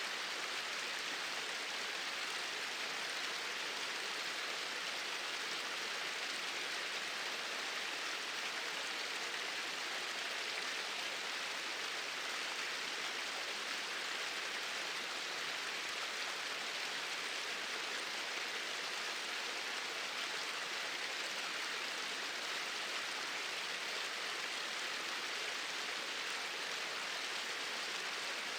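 Water from two small waterfalls pouring steadily: an even, unbroken rushing hiss, bright rather than deep.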